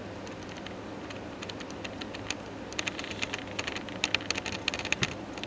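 Irregular light clicks in quick runs, sparse at first and coming thick from about two and a half seconds in, over a steady low hum.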